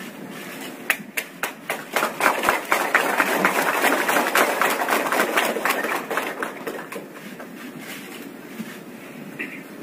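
Audience applauding: a few separate claps about a second in swell into dense applause, which dies away about seven seconds in.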